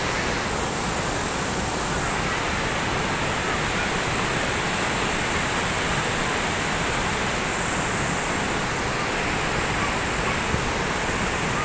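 A wide waterfall pouring onto boulders and the river rapids below it, making a steady, unbroken rush of falling and churning water.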